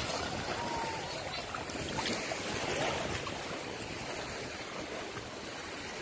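Shallow sea water splashing and sloshing around children paddling with inflatable swim rings, with small waves lapping, as a steady rushing wash.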